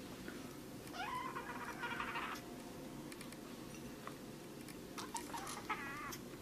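A cat mewing: one rising call about a second in, and a shorter wavering call near the end, with a few soft clicks before it.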